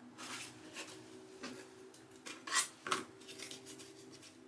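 Pieces of an old cardboard trim panel scraping and rustling against a hardboard sheet as they are pressed flat and shifted by hand, with two sharper scrapes about two and a half to three seconds in. A faint steady hum runs underneath.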